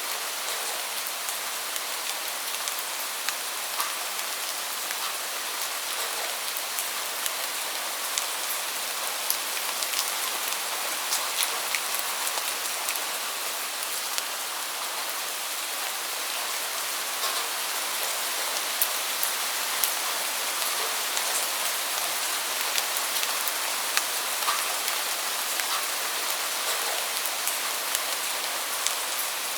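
Steady rain falling: a dense, even hiss dotted with many sharp ticks of individual drops.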